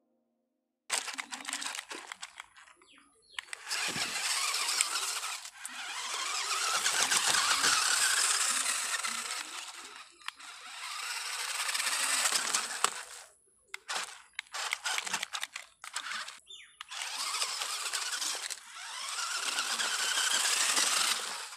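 Electric drivetrain of a radio-controlled 4x4 car, converted into a small tractor, whining as it drives over dirt. It runs in several spurts with short stops between them, and the pitch rises as it speeds up.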